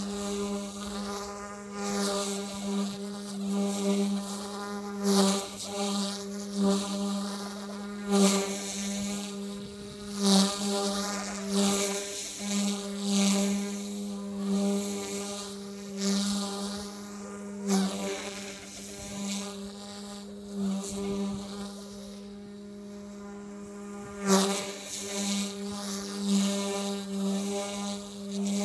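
OMP M2 V2 electric RC helicopter in flight: a steady, high buzzing whine of its motor and rotors that holds nearly one pitch. Rushing swells of noise come and go every second or two over it.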